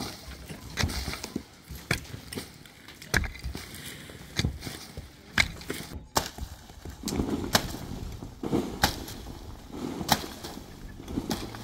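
Irregular blows of a hand digging tool into a packed-earth roof, dull strikes roughly one a second with loose dirt and rubble crumbling and sliding between them.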